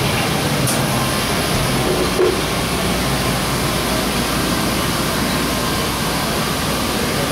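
Steady hiss of water falling in an indoor rain-curtain fountain, with a brief knock about two seconds in.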